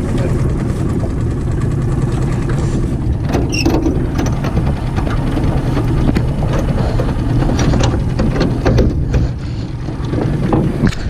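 Small outboard motor running steadily at trolling speed. A few knocks and rattles from gear moved about on the aluminum boat floor break in now and then.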